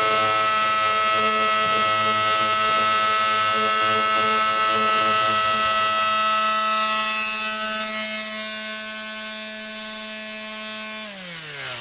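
Small handheld electric tool running with a steady high-pitched motor hum, used to help a glued wooden handle work into place. It is switched off about eleven seconds in and winds down, its pitch falling.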